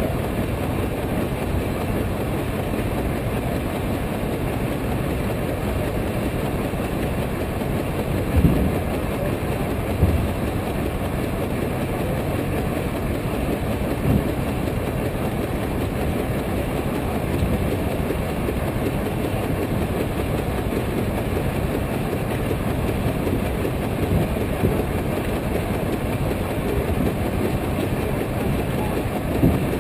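110 hp Case steam traction engine working hard under load on a brake, its exhaust chuffing in a rapid, steady beat. A few louder knocks stand out over it.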